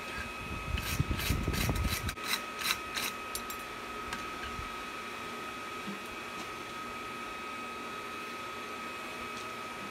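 Steel wire brush scrubbed in quick strokes across a freshly forged steel scroll pendant to knock off the forge scale: about eight scraping strokes over the first three seconds, then it stops. A faint steady high tone runs underneath.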